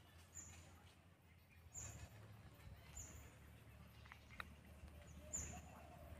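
Near silence with four faint, short, high-pitched bird chirps, each falling in pitch, spaced a second or more apart.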